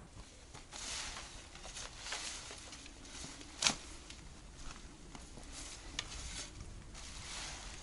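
Faint rustling and scraping of leaves and loose soil from work on a hosta plant, with a sharp click a little after three and a half seconds and a lighter one about six seconds in.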